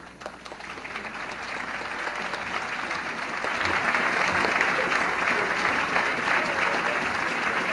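A large crowd applauding and clapping, building up over the first few seconds and then holding steady.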